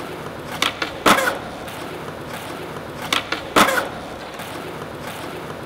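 Skateboard clacks: two pairs of sharp hits, the second of each pair about half a second after the first and the louder, over a steady background hiss.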